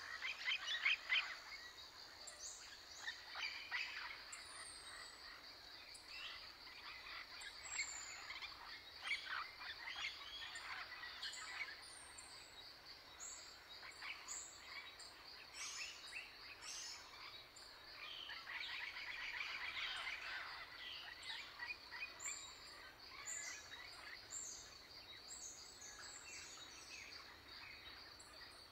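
Wild birds chirping and calling, faint, with quick trills and short falling whistles, over a steady high-pitched whine.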